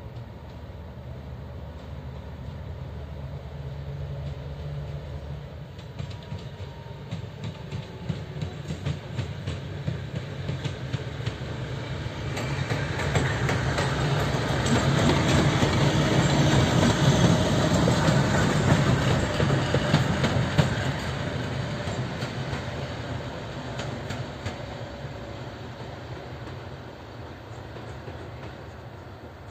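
TEP70 diesel passenger locomotive passing by: the drone of its 16-cylinder diesel engine and the clatter of its wheels over the rail joints. It grows louder as it approaches, is loudest as it passes about halfway through, and fades as it moves away.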